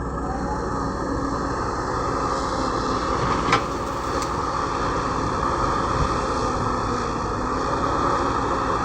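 Cat 120B hydraulic excavator's diesel engine running steadily, with a sharp knock about three and a half seconds in and a lighter one just after.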